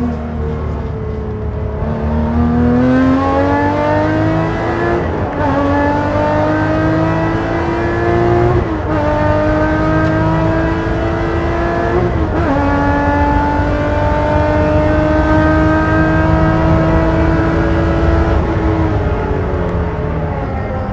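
Porsche race car engine accelerating hard through the gears. The revs climb in each gear, with three quick upshifts about 5, 9 and 12 seconds in. The engine pulls in top gear, then the revs drop near the end as the driver comes off the throttle.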